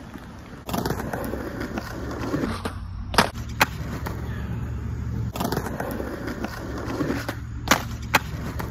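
Skateboard wheels rolling on concrete, broken twice by a trick: each time a sharp tail pop, then the board landing a little under half a second later.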